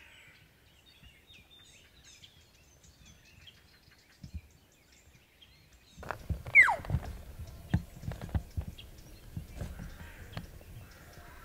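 Faint small-bird chirps, then about halfway through a louder stretch: a short elk call sliding down in pitch, the loudest sound, among scattered thuds and knocks.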